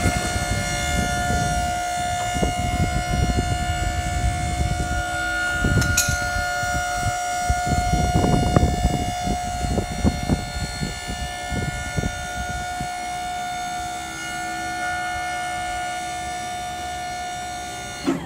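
Electric hydraulic lift pump motor of a Big Joe walkie stacker whining steadily as it raises the forks up the mast, cutting off near the end. Irregular low knocking and rattling run beneath the whine.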